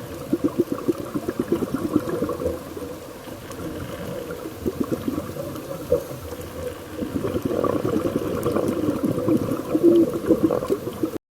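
Underwater bubbling and gurgling heard through a camera housing: a scuba diver's exhaled bubbles from the regulator, coming in spells of dense bubbling, and cutting off just before the end.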